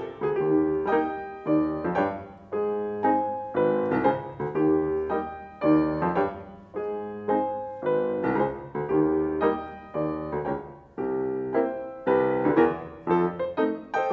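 Solo grand piano playing a ragtime piece: a steady beat of chords, each struck and left to ring and fade before the next.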